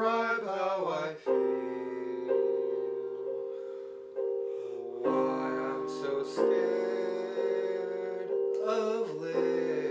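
Slow piano accompaniment, chords struck every second or two and left to ring. A man's singing voice comes in briefly at the start and again near the end.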